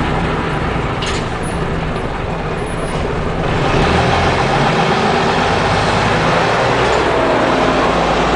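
Leyland Olympian double-decker bus's diesel engine and running noise, heard from inside the saloon with the bus under way; it gets a little louder about three and a half seconds in.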